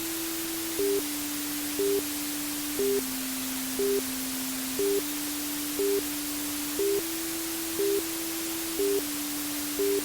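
Steady white noise hiss for lulling a baby to sleep, over a simple electronic tune: a low sustained tone that steps to a new pitch every two seconds and a short, higher beep about once a second. The beeps are the loudest sound.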